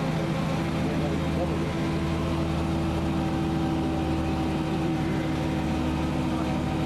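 Bristol Lodekka double-decker bus heard from on board, its diesel engine running at a steady note as the bus drives along.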